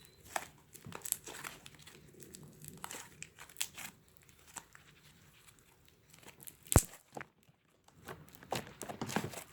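Fluffy shaving-cream slime being pressed and handled around small plastic eggs in a jar, giving soft irregular crackles and little pops, with one sharp click about seven seconds in.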